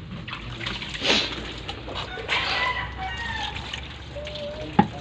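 Water poured from a plastic dipper splashing over a pufferfish being rinsed by hand, with a rooster crowing in the background about halfway through. A sharp knock near the end.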